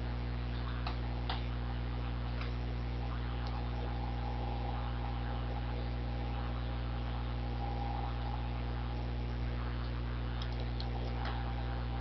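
Steady electrical mains hum from the recording setup, with a few faint clicks near the start and near the end.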